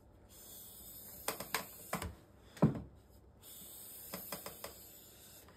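Drawknife being stropped on a compound-charged strop board: quiet scraping strokes of the steel blade, broken by a handful of sharp clicks and taps as the blade meets the board, the loudest about two and a half seconds in and a small cluster of clicks near the end.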